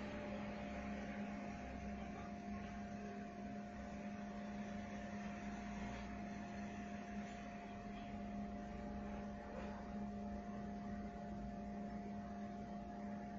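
A steady hum, with a second, higher steady tone and a faint hiss underneath.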